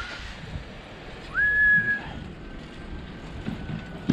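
A high whistling tone that swoops up and holds for under a second about a second and a half in, then lingers faintly, over a steady low rumble.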